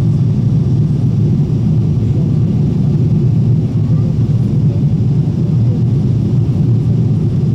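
Steady low cabin rumble of a Boeing 777-300ER in flight, airflow and jet engine noise heard from inside the economy cabin during descent.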